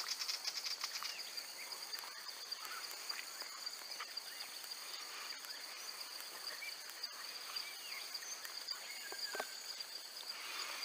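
Steady high-pitched insect chorus from the shoreline trees, with many short chirps scattered through it.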